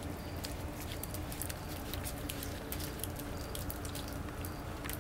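Puppies' claws and paws clicking and pattering lightly and irregularly on a concrete floor, over a steady low hum.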